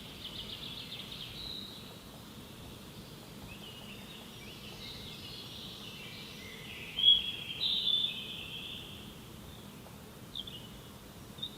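Forest birds calling over a steady faint background hiss: a rapid trill at the start, warbling phrases, a louder burst of chirps about seven seconds in, and a few short chirps near the end.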